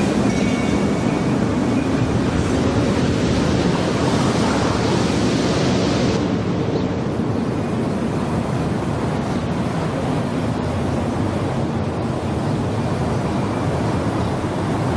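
Steady rushing noise, with the upper hiss dropping about six seconds in.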